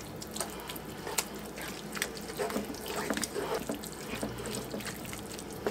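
Wooden spoon stirring a thick, creamy chicken mixture in a skillet: soft, irregular wet scraping and light clicks against the pan.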